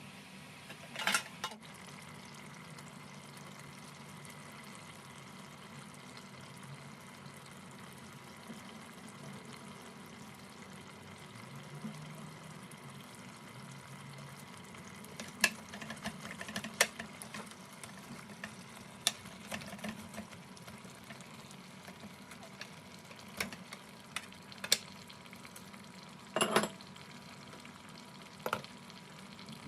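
A utensil clinking and knocking against a pot of mutton biryani, several short sharp clinks spread over a steady low hiss.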